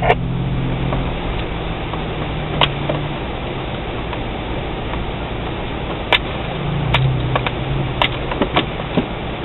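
Suzuki XL-7's V6 engine running at low speed, heard from inside the cabin, its pitch rising a little and easing back. Several sharp knocks and rattles come from the vehicle as it jolts over the rough track.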